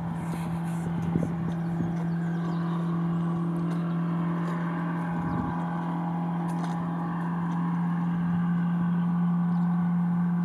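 A boat engine running steadily: a constant low drone with overtones that grows a little louder over the last few seconds.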